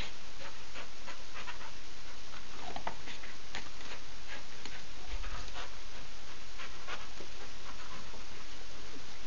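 A dog panting as it jumps up on its hind legs again and again, with short, irregular taps and scuffs of its paws landing on packed dirt.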